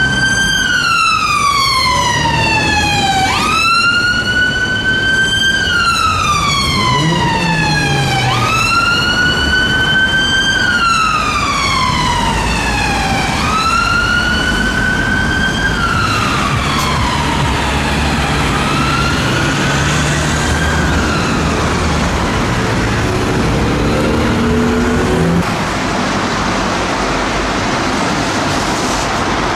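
Ambulance siren on a wail: each cycle jumps up quickly, then falls slowly, repeating about every five seconds. It fades out over several seconds as the ambulance drives away. Near the end the siren is gone and only a steady traffic-like background noise remains.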